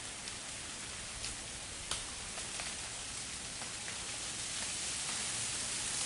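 Freezing rain falling through a bare, ice-coated forest: a steady hiss with scattered sharp ticks of drops and ice, the strongest about two seconds in, growing a little louder in the second half.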